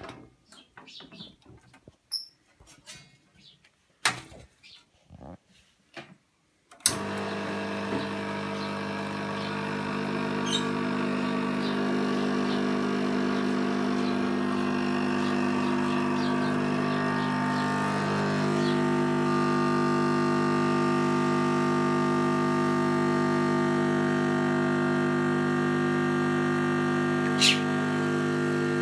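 Bezzera BZ99 espresso machine: a few clicks and knocks as the portafilter is locked into the group, then about seven seconds in the pump starts with a sudden, steady hum while a shot pulls into the cup. The hum's pitch shifts slightly partway through, and there is one sharp click near the end.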